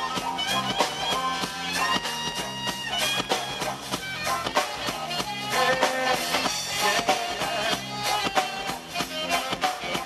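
Live reggae band playing, with guitar, keyboard and drums over a steady beat.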